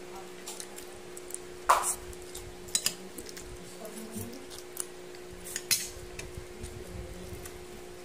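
Metal spoon and fork clinking and scraping against a plate of noodles and rice: several sharp clinks, the loudest about two seconds in, over a steady low hum.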